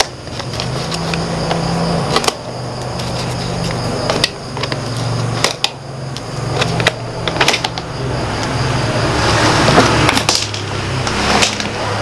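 Sharp clicks and snips of a small cutter cutting the ties on a plastic lattice basket, the hard plastic rattling as it is handled, then a longer rustling scrape about nine seconds in as the lid basket is lifted off. A steady low hum runs underneath.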